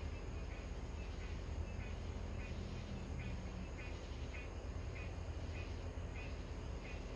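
A small animal calling a short, high chirp about every two-thirds of a second, over a steady low rumble.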